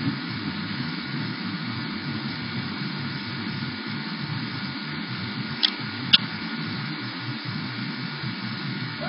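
Steady hiss and low hum of room tone, picked up through a security camera's microphone, with two sharp clicks about half a second apart a little past the middle.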